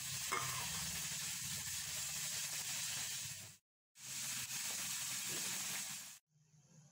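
Egg kulambu gravy simmering in a steel pot, a steady sizzling hiss. It cuts off abruptly about three and a half seconds in, comes back a moment later and stops again shortly before the end.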